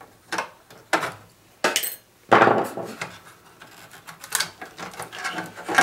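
Metal clinks and knocks from handling the Behringer GMX212 amplifier's sheet-metal chassis and front control board during disassembly: several separate clicks, with a louder knock a little over two seconds in.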